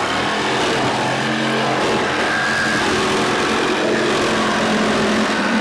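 Petrol chainsaw running at full revs, cutting through a car's sheet-metal body. Its steady engine note sits under a harsh, hissing cut.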